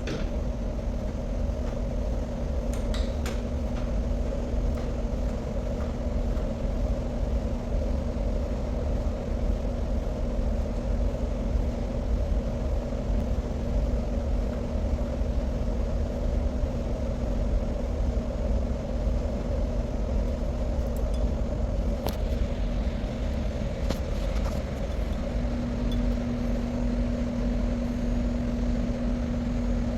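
Steady low mechanical rumble with a constant hum, and a few faint clicks; the hum grows stronger near the end.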